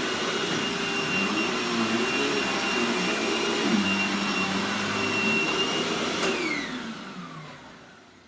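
Vacuum cleaner motor running with a steady high whine over a lower hum that wavers in pitch. It is switched off with a click about six seconds in, and the motor winds down, its whine falling and fading.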